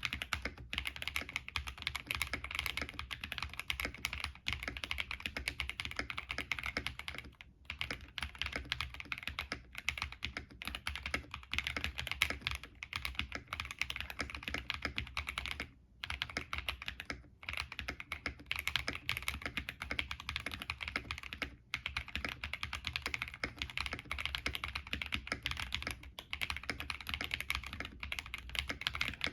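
Continuous fast typing on an Epomaker TH66 mechanical keyboard fitted with Leobog Greywood V3 linear switches, dampened case and tape mod, in rapid runs of keystrokes broken by a few short pauses.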